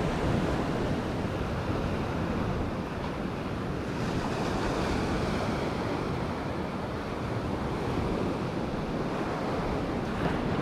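Ocean surf breaking and washing up the sand at the shoreline, a steady rushing wash.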